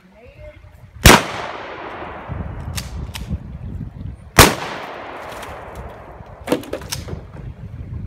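Two loud gunshot-like bangs about three seconds apart, each trailing off in a long fading rumble, with several smaller sharp cracks between and after them.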